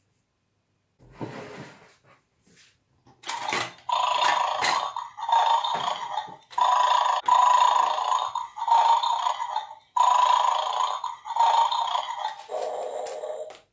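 Electronic dog growling from the speaker of a toy bulldog in a Bad Dog bone-grabbing game, repeating in phrases of about a second each from about three seconds in. The sound plays while the armed toy guards its bones.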